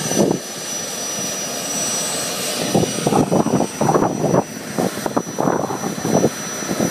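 Radio-controlled model jet's small gas-turbine engine whining steadily at low power as it taxis, a thin high whine over a constant rushing hiss. From about three seconds in, uneven low gusts of noise come and go over it.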